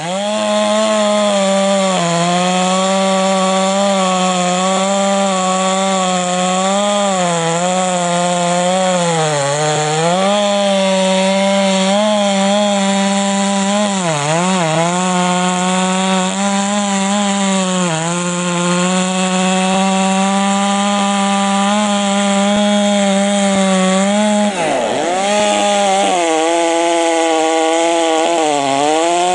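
Stihl 064 two-stroke chainsaw, fitted with a Mahle 066 top end, running at high revs with a steady high pitch. The pitch sags briefly about five times and recovers, typical of the chain loading up in a cut through wood.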